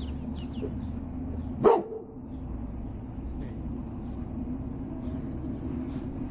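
A dog barks once, about a second and a half in, over a steady low rumble and faint bird chirps.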